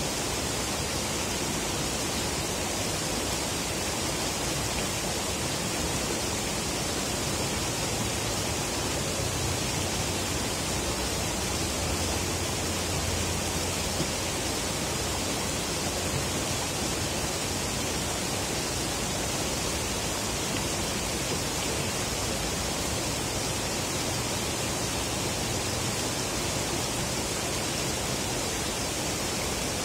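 Steady rushing of flowing river water, an even hiss with no breaks. A faint low hum rises and fades around the middle.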